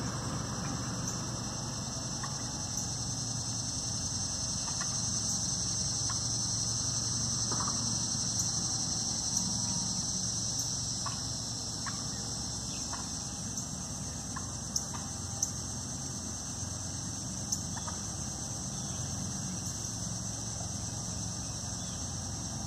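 Turkeys giving scattered short clucks as they settle onto their roost in the trees for the night, over a steady high-pitched drone.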